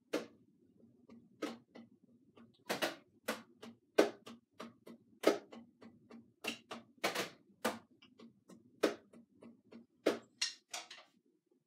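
Drumsticks tapping on the pads of an Alesis electronic drum kit, heard only as dry acoustic clicks because the kit's drum sounds go to the player's headphones. The taps come unevenly, two or three a second, and stop shortly before the end.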